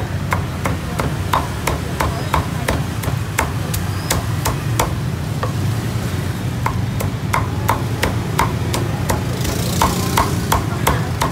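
Meat cleaver chopping roast pork on a thick round wooden chopping block: steady, even strikes about three a second, each a sharp knock with a short ring, with a brief pause about halfway through before the chopping resumes.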